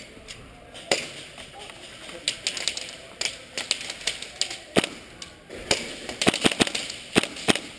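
Airsoft guns firing: sharp single shots scattered through, then several in quick succession toward the end.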